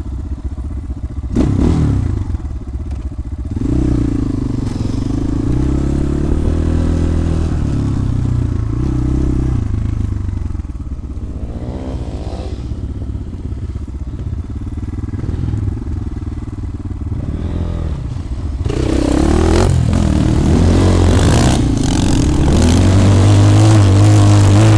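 250 cc single-cylinder enduro motorcycle engine being ridden, the revs rising and falling repeatedly as the throttle is worked. There is a sharp knock about a second and a half in, and the revs climb hard again near the end.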